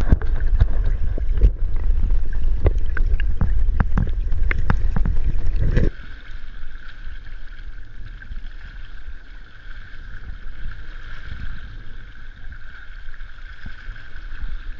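Loud knocks and sloshing of water against a handheld action camera at the river's surface. About six seconds in they give way to a quieter, steady, muffled wash of river current around the camera.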